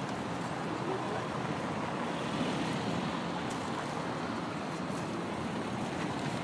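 Steady outdoor rush of city traffic mixed with wind on the phone's microphone, with no single event standing out.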